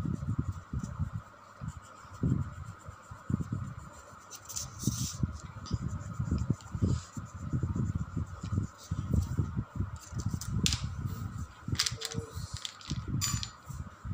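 Colouring strokes rubbing on paper over a clipboard, heard as irregular low scrubbing noises that come and go, over a steady hum.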